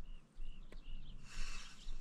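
A bird calls three short, evenly spaced notes at the same pitch, then a rushing hiss comes in over the last half second.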